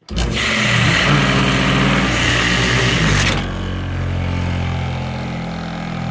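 Homemade 1x30 belt sander's 3450 RPM motor switched on: it spins up at once with a loud rush of belt noise over its running hum. The rush stops suddenly after about three and a half seconds while the motor keeps humming, a sign that the belt has failed and come off.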